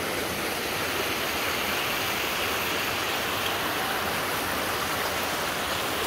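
A river's water rushing steadily.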